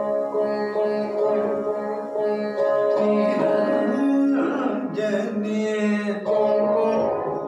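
Saraswati veena plucked and fretted in a Carnatic kriti, its notes ringing and bending. The player sings along with it for a couple of seconds in the middle.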